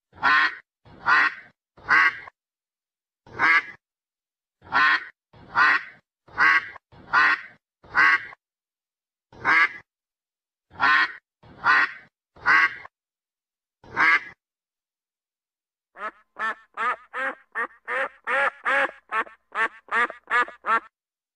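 A duck quacking: about fourteen separate harsh quacks, one every second or so, with dead silence between them. About five seconds from the end a faster run of shorter quacks starts, about three a second.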